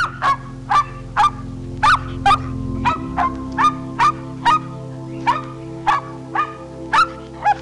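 Small dog barking rapidly, sharp high-pitched barks at about two a second, over background music with a steady drone.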